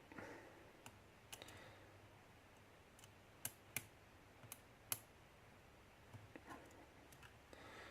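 Faint, irregular clicks of a hook pick working the pin stacks of a pin-tumbler challenge lock under very light tension, about eight small ticks spread across a near-silent background.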